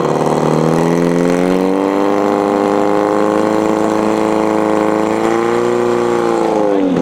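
Portable fire pump's engine running hard at high revs, pushing water through the attack hoses. Its pitch stays steady, rises slightly about two seconds in, and drops near the end.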